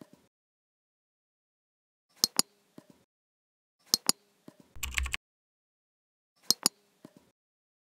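Computer mouse double-clicks, three pairs of sharp clicks a couple of seconds apart, with a short burst of keyboard key presses about five seconds in.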